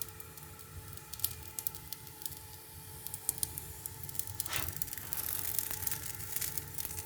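Kitchen handling noises: scattered small clicks and taps, with a brief crinkling rustle about halfway through, over a steady hum.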